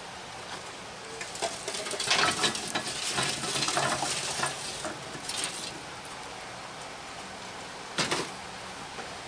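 Lit charcoal briquettes poured from a metal chimney starter into a cast iron Sportsman's Grill, clattering and rattling onto the grate and into the bowl for a few seconds. A single sharp knock comes near the end.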